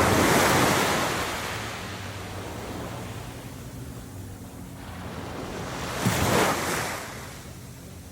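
Surf washing ashore: one wave breaks right at the start and fades over a couple of seconds, and a second builds and breaks about six seconds in. A faint low steady hum runs underneath.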